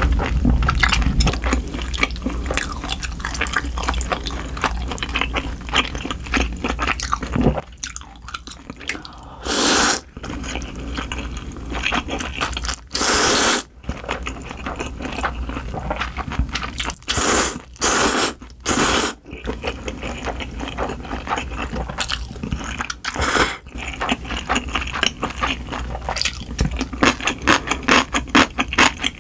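Close-miked eating sounds: rapid, wet chewing throughout, broken by several loud slurps of cold buckwheat noodles, the first about a third of the way in and three in quick succession around the middle.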